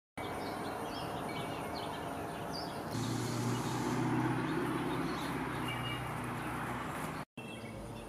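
Small birds chirping over steady outdoor background noise. About three seconds in, a low steady hum with a broad rush comes in, swells and eases off, and the sound drops out for a moment near the end.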